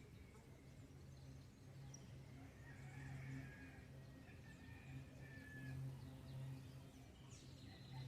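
Faint dawn bird calls: drawn-out whistled notes a few seconds in and short high chirps near the end, over a low steady hum.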